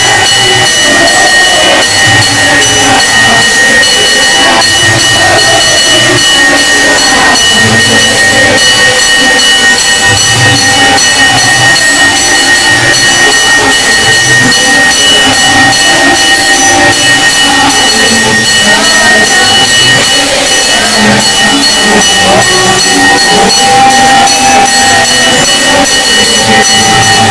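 Loud music with a fast, even beat and a steady high ringing held throughout.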